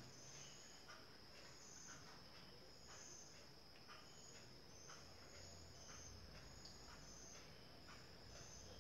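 Near silence with faint, high-pitched insect chirps repeating a little more than once a second over a steady thin high tone.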